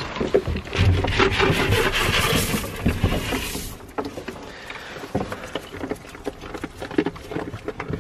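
Hay rustling and scraping against a wooden hay feeder as goats feed at it. The rustle is loud and continuous for the first few seconds, then gives way to lighter scattered rustles and clicks as the goats pull at the hay.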